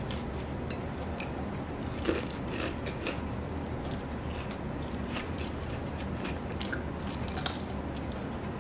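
A person biting and chewing crispy Korean fried chicken, with irregular crunches and mouth sounds, one sharper crunch about two seconds in.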